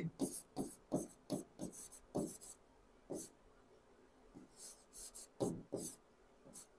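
Writing on a blackboard: faint scratching strokes, a quick run of them in the first two seconds or so, then a few sparser ones.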